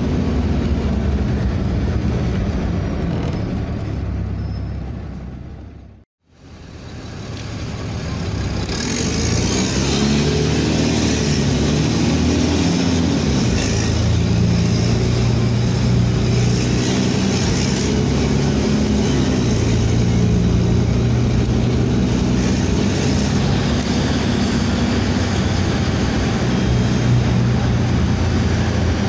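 Cummins ISBe 6.7 inline-six diesel of a city bus running with a straight-through (open) exhaust, heard on board. It fades out about six seconds in and back up, then climbs and falls in pitch a few times before running steadily.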